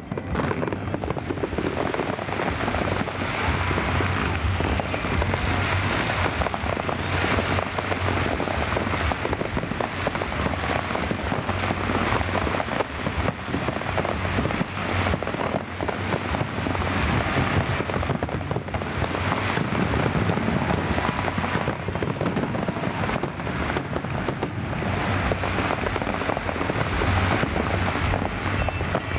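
Large aerial fireworks display in a continuous barrage: many shell bursts and crackles overlap without a pause.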